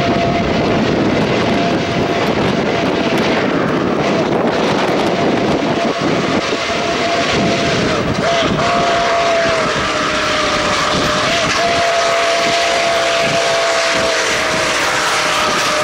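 Nickel Plate Road 765 steam locomotive blowing its chime whistle in long, nearly unbroken blasts as it approaches, with brief dips about eight and eleven seconds in. A steady rush of steam and the moving train runs underneath.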